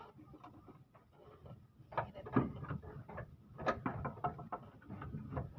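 Irregular light knocks and clicks of a Toyota Avanza suspension arm being handled and worked into its mounts under the car, coming thicker and louder from about two seconds in.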